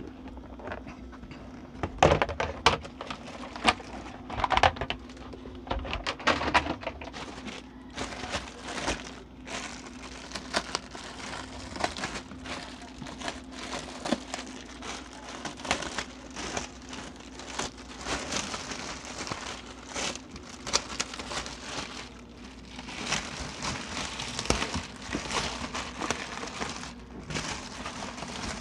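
Clear plastic wrapping crinkling and rustling as it is handled and pulled off a large plastic bin, in irregular crackles with louder sharp peaks in the first several seconds. A steady low hum runs underneath.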